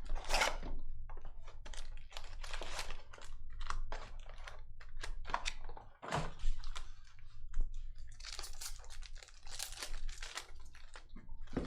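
Trading-card packs being opened and handled: foil wrappers crinkling and tearing, with irregular clicks and rustles of cards being shuffled. The rustling is densest near the end.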